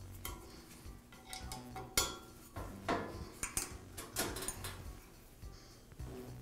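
Hex key tightening the set screw that holds the steel pivot rod in a tile saw's cast metal post: a scattering of light metallic clicks and clinks as the key and parts are handled.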